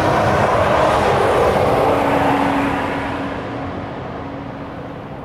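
A passing vehicle: a loud rushing noise with a faint steady hum, fading away from about three seconds in as it recedes.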